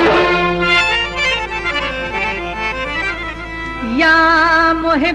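Hindi film-song music: sustained melodic notes from a reedy instrument, and near the end a held note that slides up and wavers.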